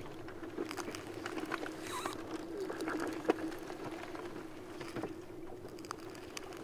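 Sea ice floes rubbing against each other: a steady droning tone with scattered creaks and crackles, and one sharp crack about halfway through.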